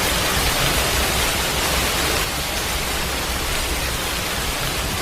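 Steady, unbroken rush of water, full of hiss with a low rumble underneath, like a torrent or flood in spate.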